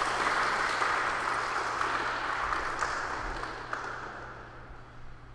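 Audience applauding, loudest at first and fading out over about five seconds.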